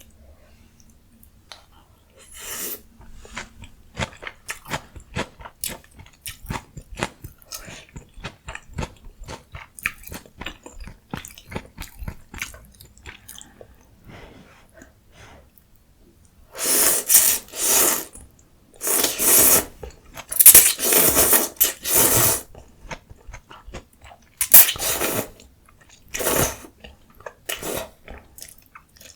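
Close-miked eating of green onion ramyun and mustard leaf kimchi: quick, soft, wet chewing clicks, then, about two-thirds of the way through, a string of loud bursts about a second long each, with a few more near the end.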